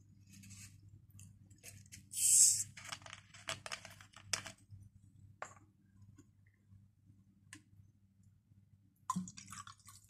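Twist cap of a plastic Coca-Cola bottle unscrewed, letting out a short, loud hiss of gas about two seconds in, followed by clicks and crackles of the cap and the plastic bottle being handled. Near the end come a few more knocks as the cola starts to pour into a stainless steel cup.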